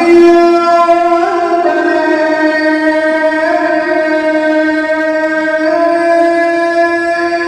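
A muezzin's voice calling the azaan, holding one long sung note without a break for breath, with small turns in pitch along the way.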